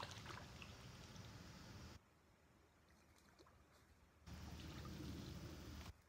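Fishing reel being cranked to retrieve a lure, a faint steady whir in two stretches with a pause of about two seconds between them.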